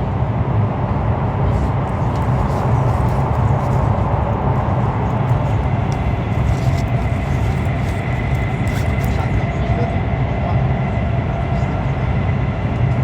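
Running noise inside the carriage of a CRH1A-A high-speed train at speed: a steady low rumble, with a faint high whine that comes in about halfway.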